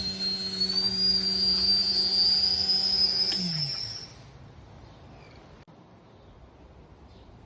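Indesit IWSC61051 washing machine running with a loud, high-pitched whine that rises slightly, over a steady motor hum; the whine comes from its failed drum bearings. About three seconds in the motor cuts out, its hum falls in pitch, and the sound dies away within a second, leaving only a faint hiss.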